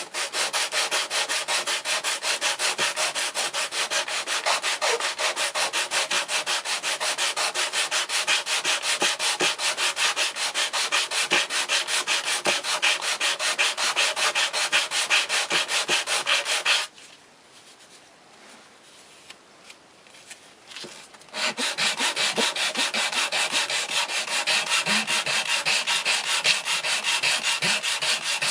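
Leather being sanded with rapid, even back-and-forth rasping strokes. The strokes stop about seventeen seconds in, leaving a few seconds of quiet with light handling clicks, then start again.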